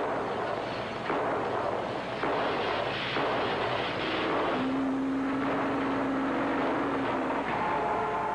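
Loud city din: a rough rumbling roar that jumps louder with sudden onsets about one, two and three seconds in. A low steady tone sounds for about three seconds in the middle.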